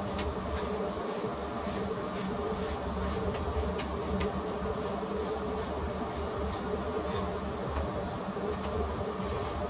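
Corded electric hair clippers running with a steady buzz.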